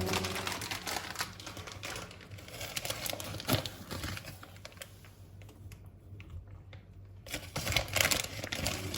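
Hands handling something crinkly: rustling and crinkling with many small clicks and taps, briefly quieter midway, with a few sharper taps near the end.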